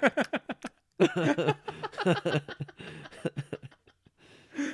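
Two men laughing together in short, quick bursts, trailing off near the end.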